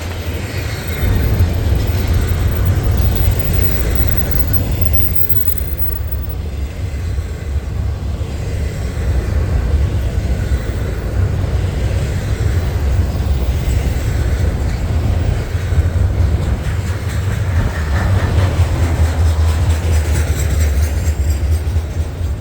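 Intermodal freight train cars rolling past, a steady deep rumble of steel wheels on rail.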